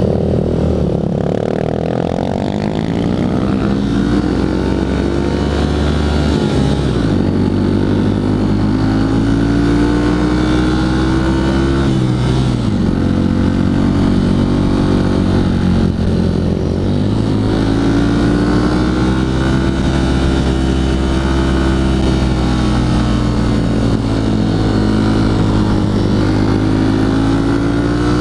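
Honda CRF150L's single-cylinder four-stroke engine running under way. Its revs climb slowly and then drop back sharply three times.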